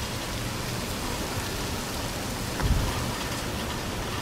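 Steady rain falling outside an open patio screen door, an even hiss, with one brief low thump about two and a half seconds in.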